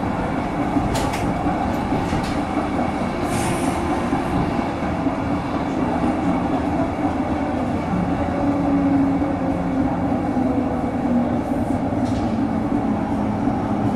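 Tram running along its tracks, heard from on board: a steady rumble of wheels on rail with a low motor hum. A few short high-pitched noises come in the first few seconds and again near the end.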